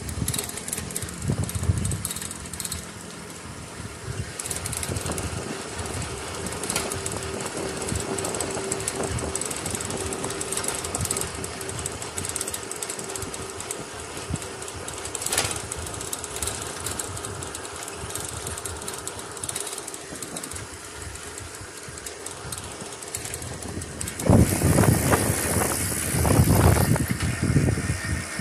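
Bicycle rolling along an asphalt road, heard from a phone at the handlebars: a steady rattle and road noise, with a louder rumbling stretch for a few seconds near the end.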